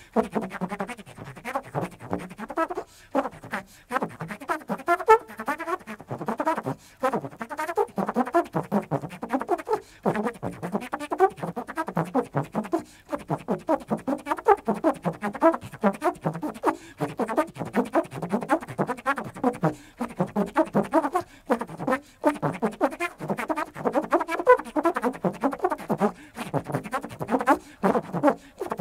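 Free jazz trombone playing in quick, broken phrases of short notes with brief gaps between them.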